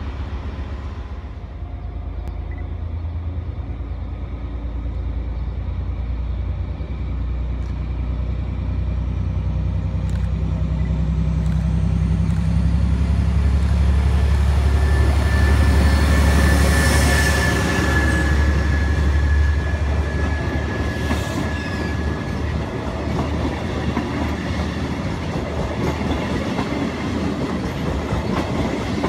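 FS D445 diesel locomotive running under power as it approaches and passes, its deep engine drone growing to a peak as it goes by about halfway through, with a high steady whine while it is closest. Then the passenger coaches roll past, wheels clattering over the rail joints.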